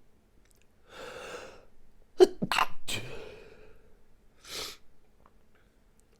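A person's stifled sneezes. A breathy sound comes about a second in, then three quick sneezes close together around two seconds in, and one shorter breathy sound near the end.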